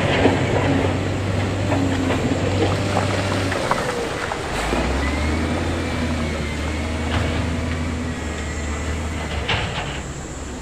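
Heavy diesel construction machinery running steadily, its engine note dropping lower about four seconds in, with scattered knocks and clatter of stone being moved.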